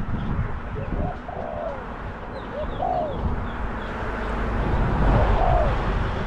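Spotted doves cooing in repeated short, arched coos. A few small birds chirp faintly, and a vehicle passes on the road, loudest about five seconds in.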